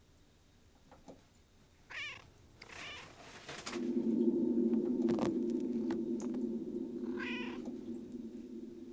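A house cat meows twice, once about two seconds in and again near the end. A steady low hum comes in about four seconds in and is the loudest sound, and there is a single knock about five seconds in.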